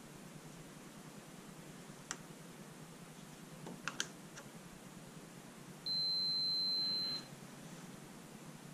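Continuity tester wired across the ignition breaker points of a 3 hp Johnson outboard giving one steady high beep of just over a second, past the middle: the sign that the points are touching, closed, as they are set for timing. A few faint clicks of handling come before it.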